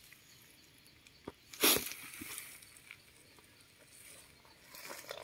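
Dry leaf litter on the forest floor rustling and crackling as a hand gathers a wild mushroom from among the leaves. There is one short loud crackle about one and a half seconds in and softer rustling near the end.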